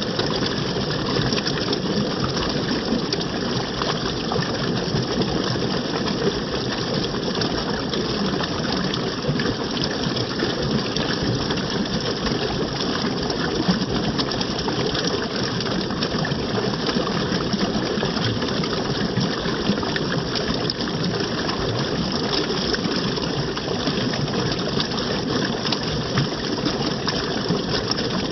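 Running water rushing and splashing steadily, like a small waterfall or fast stream.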